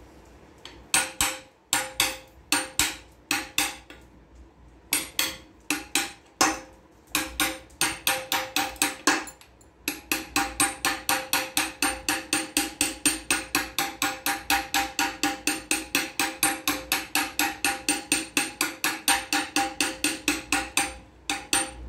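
Hammer blows on a drift driving the oil seal into a Land Rover front hub. Each strike sets the metal hub ringing with the same clear note. The blows come in irregular groups with short pauses at first, then from about halfway settle into a steady run of about three a second.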